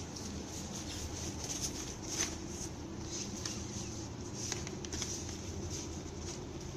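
Scattered light clicks and taps of crib parts being handled and fitted together during assembly, over a steady low hum.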